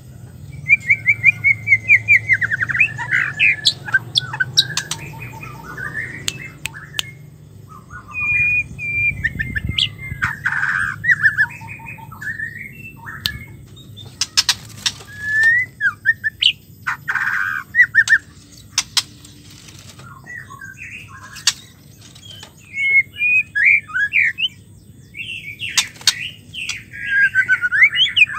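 Female white-rumped shama (murai batu) singing and calling: a run of short, varied whistled and chattering phrases with gaps between them, and sharp clicks scattered through.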